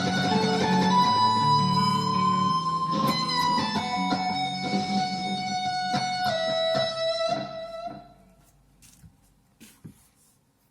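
A guitar playing the closing notes of a piece, single sustained notes ringing with slight pitch bends; the last note fades out about eight seconds in, leaving a few faint clicks.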